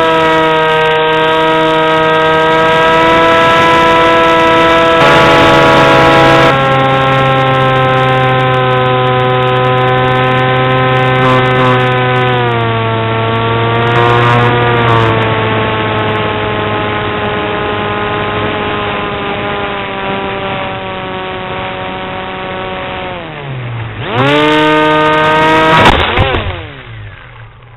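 Electric brushless motor and propeller of an RC flying wing, heard from the onboard camera, whining steadily in flight, its pitch stepping down a few times as the throttle is eased. Near the end the pitch dips sharply and climbs again, then a loud crash as the plane goes into a tree, and the motor whine sweeps down and stops.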